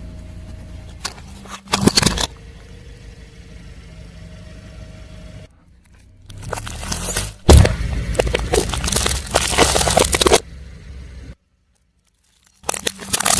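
A car tyre rolling over and crushing brittle objects: crackling and crunching in short spells, a brief one about two seconds in and a long one from about six to ten seconds, over the low steady hum of the car. A second of dead silence near the end, then more crunching.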